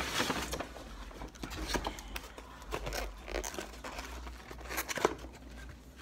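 Paper takeout bag rustling and crinkling as it is handled, with scrapes and light knocks as a clamshell food container is pulled out and opened. The crackling comes in irregular bursts, loudest at the start and again about five seconds in.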